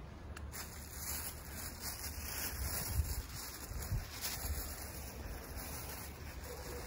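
Wind buffeting the microphone: a steady low rumble, swelling a little a few seconds in.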